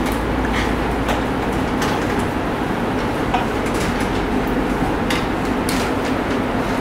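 Marker pen writing on a whiteboard: short, scratchy strokes every half second or so. Under them runs a loud, steady drone of room noise with a constant hum.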